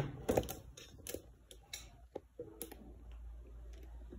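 Irregular light clicks and taps from the joints and fittings of a spring-loaded overhead phone bracket arm as it is moved into a new position, thickest in the first few seconds.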